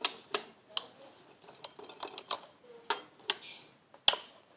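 Sharp clicks and metallic clinks of tools and parts being handled while a scooter is taken apart: an irregular scatter of knocks, the loudest about four seconds in, with a short hiss just after three seconds.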